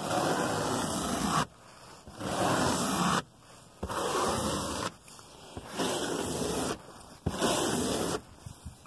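A stiff-bristled detailing brush scrubbed across car carpet in five long strokes, each about a second long, with short pauses between them.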